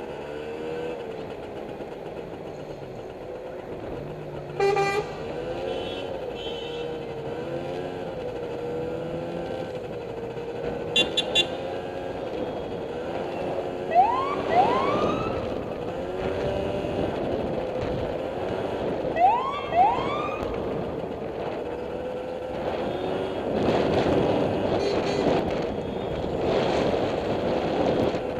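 Truck engines running with horns sounding: a short horn blast about five seconds in, three quick toots around eleven seconds, and two pairs of short rising siren whoops, one pair around fourteen seconds and the other around nineteen.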